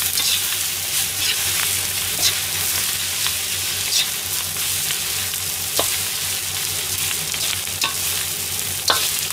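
Fried rice with lettuce sizzling in a hot wok, stirred and turned with a metal ladle that scrapes and taps against the pan at irregular moments.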